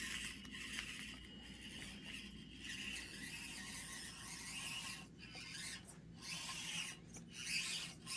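Axial SCX24 micro RC crawler on the move: its small electric motor and gears whining in uneven throttle spurts, stopping briefly a few times, with the tyres scraping and rasping over dirt.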